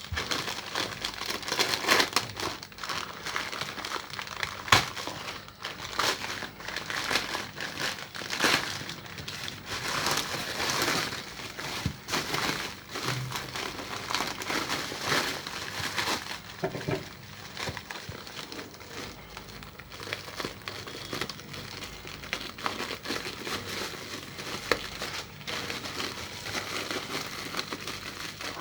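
Packaging of a wireless USB adapter being opened by hand: irregular crinkling and rustling, with a sharp click about five seconds in.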